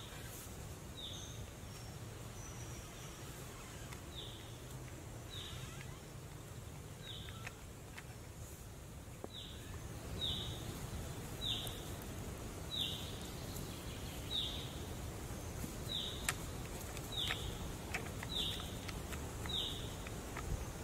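A bird repeating a short, high, downward-sliding call, at first with gaps and from about halfway through roughly once a second, over a steady low outdoor background, with a few faint taps.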